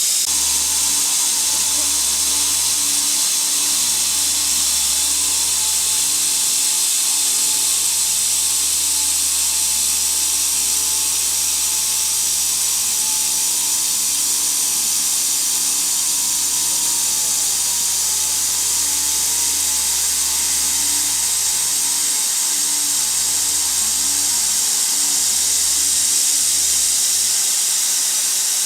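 Delta Machinery DT-100 circular sawing machine running steadily: a loud, even hiss over a low motor hum that dips briefly now and then.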